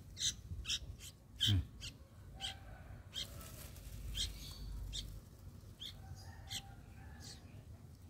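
Sooty-headed bulbul (kutilang) nestlings giving short, high begging chirps while being hand-fed crickets, about a dozen scattered calls.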